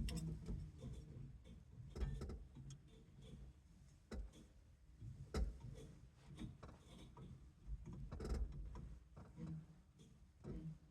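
Irregular small clicks and knocks of steering wheel and horn kit parts being handled and test-fitted on a steering column, a few of them sharper knocks.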